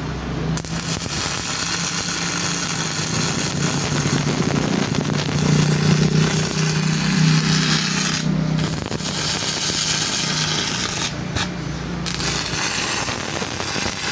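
Stick-welding arc from a freshly serviced Enka welding machine set to 80 amps, crackling steadily with a low hum underneath. The arc breaks off briefly twice, about two-thirds of the way through and again near the end. The machine holds the arc under load.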